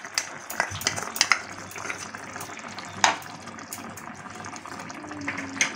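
A metal spoon scrapes and taps garam masala powder out of a plastic bowl into a pan of curry gravy, then stirs it in, with light clicks scattered through and one sharper tap about three seconds in. Under it runs the low hiss of the gravy simmering.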